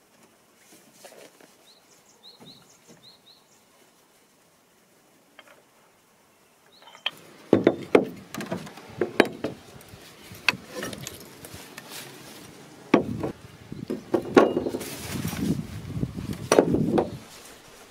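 Faint high chirps over quiet outdoor ambience, then, from about halfway, a long series of sharp knocks and clatters: old Finnish axes, wooden handles and steel heads, being set down one by one on weathered wooden bench planks, with the rustle of a canvas bag.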